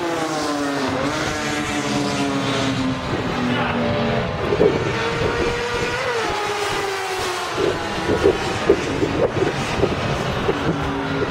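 Suzuki GSX-R1000 inline-four racing engine revving. Its pitch falls in steps over the first few seconds, then rises and falls, and in the second half comes a quick run of short, sharp throttle blips.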